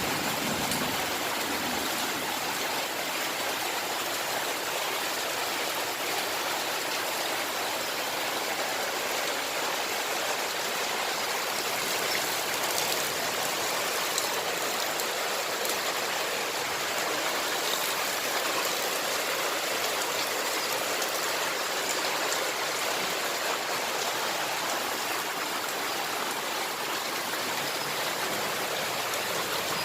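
Steady rainfall: a continuous, even hiss of rain, with a few faint separate drop ticks.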